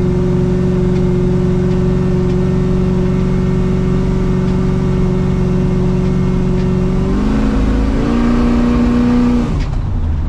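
A Chevy C10 pickup's engine pulls steadily while driving in second gear through a 700R4 automatic transmission. About seven seconds in the engine note steps to a new pitch, and near the end it drops sharply, as at a gear change.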